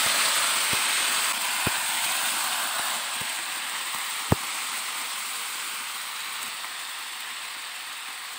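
Shrimp and mixed vegetables sizzling in hot oil in a non-stick pan as they are stir-fried, a steady hiss that eases slightly. The spatula knocks against the pan four times in the first half, loudest about four seconds in.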